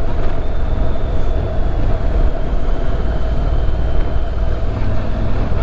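Motorcycle riding at a steady speed: a continuous engine drone mixed with wind noise rushing over the microphone, unchanging throughout.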